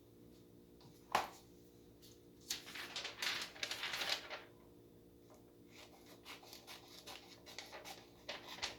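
Small pocket-knife scissors snipping through paper. There is a sharp click about a second in, then a couple of seconds of crackly cutting and rustling, then softer, scattered snips.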